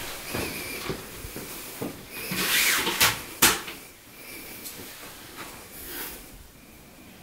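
Footsteps on a tiled floor, then a rushing swish and two sharp clicks about half a second apart, the clicks the loudest sounds.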